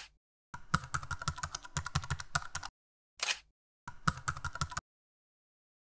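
Typing on a computer keyboard: about two seconds of rapid key clicks, a brief burst, then roughly another second of typing, with clean silent gaps between.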